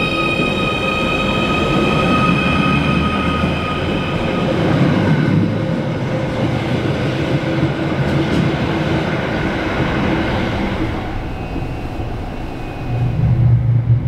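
Merseyrail Class 777 electric train moving past the platform: a steady high whine over the rumble of the running train for the first few seconds, then a rushing rail noise. Near the end it gives way to a louder, lower steady hum heard inside the train.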